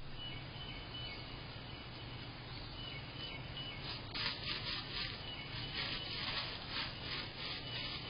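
Night-time animal calls: a faint repeated high chirp, then from about four seconds in a louder run of rapid high-pitched pulses, over a steady hiss and low hum.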